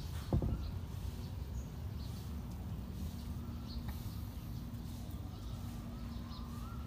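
Outdoor ambience: a steady low rumble with short, faint bird chirps scattered through it. A single thump comes about a third of a second in, and a faint steady hum joins from about two and a half seconds in.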